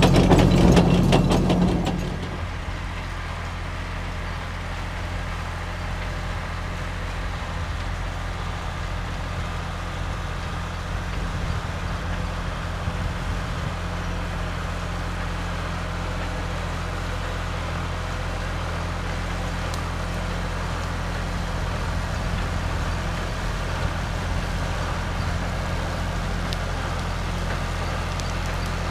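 Loud mechanical clatter close by for about the first two seconds, then the steady low hum of an older John Deere diesel tractor running as it pulls a loader wagon, growing slightly louder near the end.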